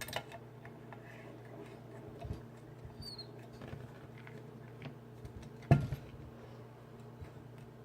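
Small metallic clicks and scratches of lock-picking tools being handled and worked in an Abus E60 euro cylinder lock, with one sharper click about six seconds in, over a steady low hum.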